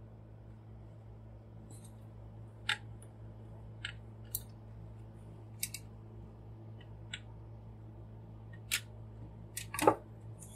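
Scattered light clicks of hard plastic parts on a transformable robot action figure being handled and adjusted by hand, about one a second, with the loudest clack near the end.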